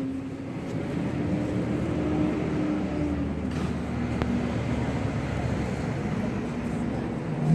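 Steady low engine hum with a droning tone that drifts slightly in pitch, and one faint click about four seconds in.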